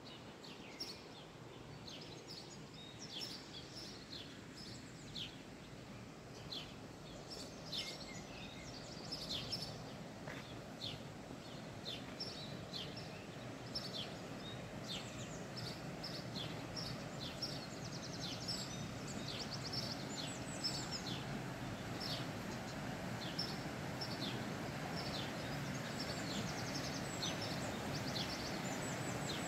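Many small birds chirping and twittering in short, quick calls, over a steady rushing background noise that grows gradually louder.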